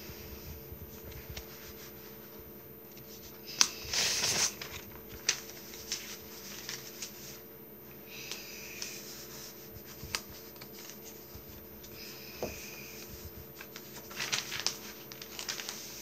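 Handling of a coloring book: paper rustling with a few light taps and clicks, including a short crinkling rustle about four seconds in and another near the end.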